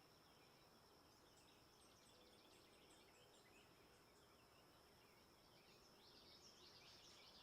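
Near silence: a faint steady high tone, with faint bird chirps scattered through it that grow a little stronger near the end.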